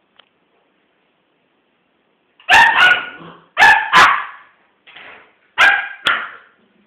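Small dog barking: six sharp barks in three quick pairs, starting about two and a half seconds in.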